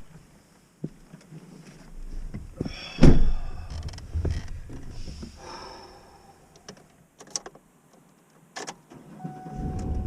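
Scattered clunks, knocks and rustles with one loud thump about three seconds in, then a vehicle's low, steady engine hum comes in near the end.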